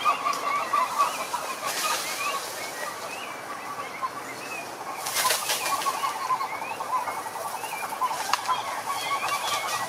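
A chorus of frogs calling over one another: many short croaks and chirps, with a fast trilled pulsing that runs through the middle. Two brief hissing bursts cut across it, about two seconds in and about five seconds in.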